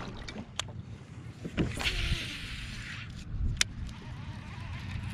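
Kayak paddle stroke splashing and swishing through the water, with two sharp clicks against the kayak, over a low wind rumble.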